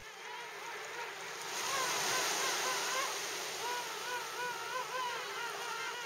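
King penguins calling: two long warbling calls with a rapidly wavering pitch, one starting about a second and a half in and another about three and a half seconds in, over a steady hiss of sea water.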